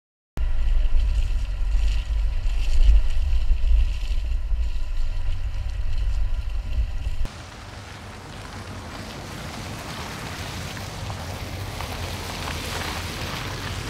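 Mini Cooper S Countryman ALL4 driving over wet grass, heard close to the front wheel: engine and tyre noise under heavy wind rumble on the microphone. After a sudden cut about seven seconds in, a quieter, steady rush of the car on a forest track, slowly growing louder.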